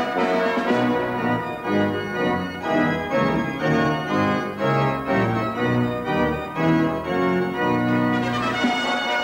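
Instrumental music led by an organ, a tune of held notes changing every half second or so over a bass line.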